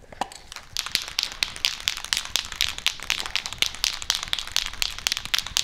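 Aerosol can of guide coat being shaken by hand, its mixing ball rattling in a fast, steady run of clicks.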